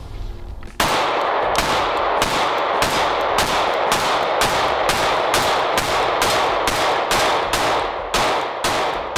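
Sig P365 XL Spectre 9mm micro-compact pistol fired in a steady rapid string, about two shots a second, emptying a magazine; the string starts about a second in. Each shot is followed by an echo that fills the gap before the next.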